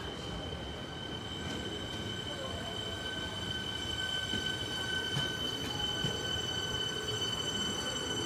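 Melbourne suburban electric train moving through the platform, its wheels squealing on the rail in a steady, high-pitched whistle of several tones held together over the rumble of the train; a bit loud.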